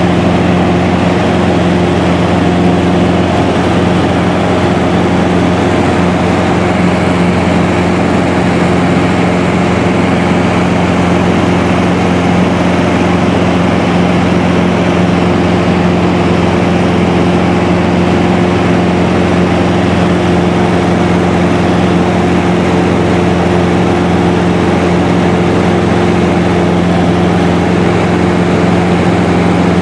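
Light aircraft's engine and propeller running at a steady cruise, heard from inside the cabin: an even drone that holds one pitch throughout.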